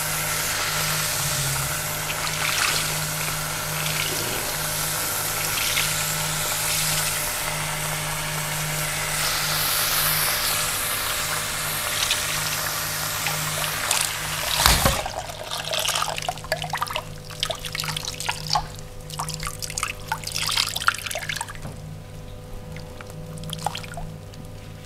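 Water running in a steady stream, which stops suddenly about fifteen seconds in. After that come scattered wet crackling and dripping sounds that thin out toward the end.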